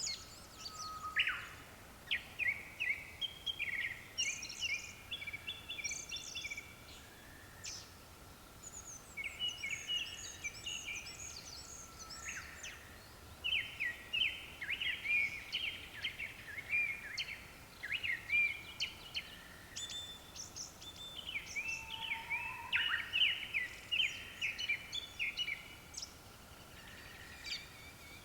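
Japanese thrushes singing: overlapping strings of fluty whistled and twittering phrases, with notes repeated in quick series, from more than one bird.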